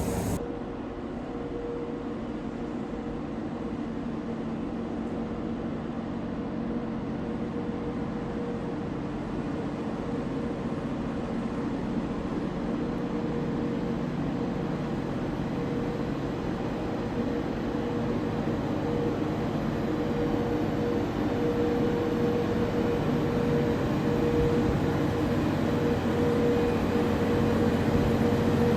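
A railway train running with a steady hum, getting gradually louder as it nears.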